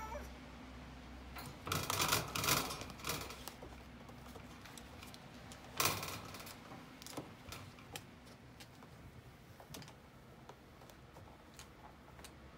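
Bengal cat shifting about inside a wire pet cage with a plastic tray: scattered clicks, scrapes and rustles of paws and claws on the mat and tray and of the cage, busiest about two to three seconds in, with a sharper scrape about six seconds in, then only faint ticks.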